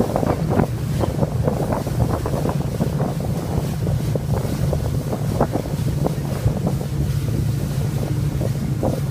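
Wakeboard boat under way: a steady low engine hum, with wind buffeting the microphone in irregular gusts.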